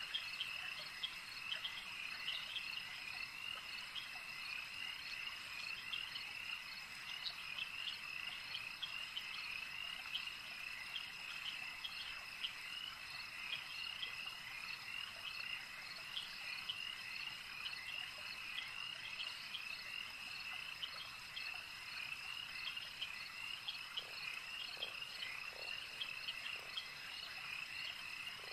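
A steady chorus of small calling animals: dense, rapid, repeated high chirps with a thin steady high tone above them, and a few short lower calls near the end.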